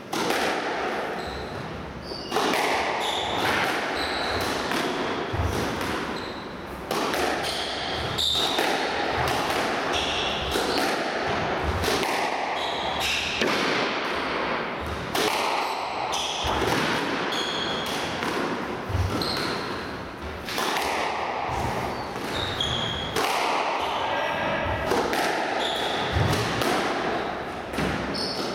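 Squash rally: the ball cracks off rackets and smacks into the walls in quick succession, with short high squeaks of shoes on the wooden court floor between the hits.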